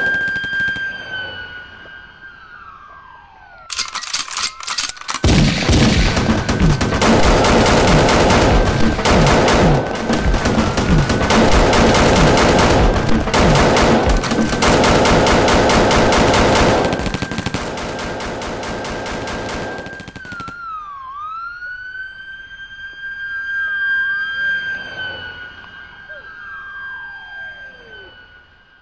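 Rapid automatic gunfire, added as a sound effect: one long continuous burst that starts about four seconds in and stops about sixteen seconds later. Under it, a steady high electronic whistle runs throughout, swooping down and back up in pitch at times and sliding away at the start and end.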